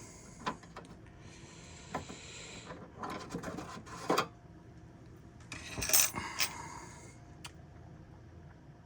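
Long machine screws clinking and rattling loose inside a bread maker's plastic case, with scraping and clicking as the case is handled. Scattered knocks, and two stretches of rubbing about two seconds in and again near the middle.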